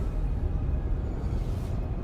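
Low, steady rumbling drone from a TV episode's soundtrack: dark ambient score and rumble with no dialogue.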